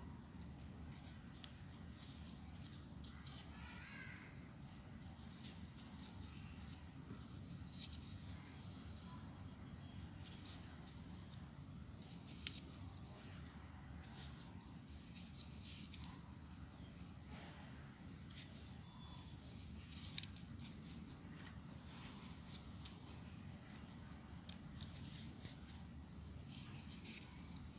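Folded paper units of a 3D origami model rustling and clicking as fingers handle and press the piece: many short, crisp ticks and scratches scattered irregularly throughout.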